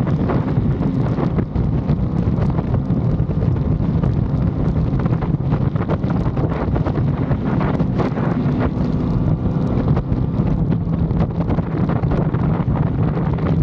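Wind buffeting the microphone on a moving Aprilia Tuono 660 Factory motorcycle, with its parallel-twin engine running steadily underneath at a near-constant pitch.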